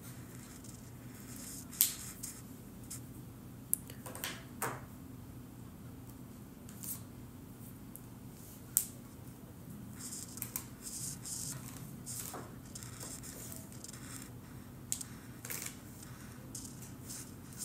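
Broad marker tip scratching on paper in short, irregular strokes as it colours in, over a faint steady low hum.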